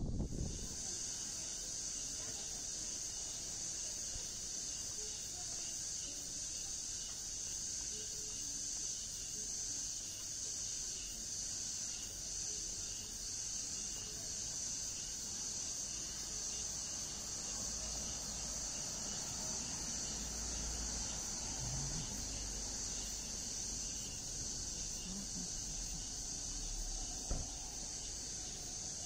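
Steady, high-pitched drone of an insect chorus, unbroken throughout, over a faint low rumble, with one short knock near the end.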